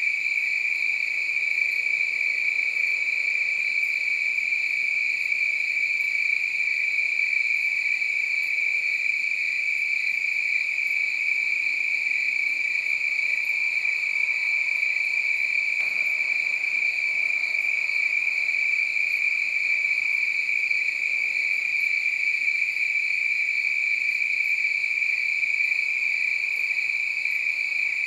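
Crickets chirping together in one steady, unbroken high-pitched trill.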